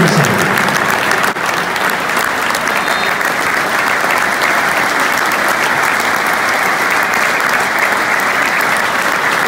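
Large football stadium crowd applauding steadily in tribute before kick-off: thousands of hands clapping into a dense, unbroken crackle.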